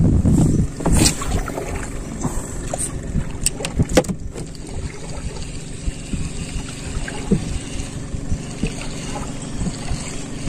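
Ultralight spinning rod and reel handled through the end of a cast and the retrieve. A burst of wind and handling noise at the start, sharp clicks about one and four seconds in, then a steady low background as the line is reeled in.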